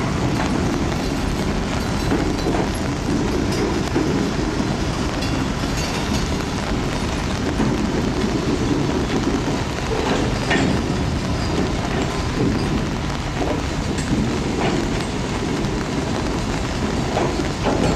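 Freight cars, a boxcar and a lumber centerbeam car, rolling slowly along the track with a steady low rumble from the wheels, broken by a few sharp clicks and clanks.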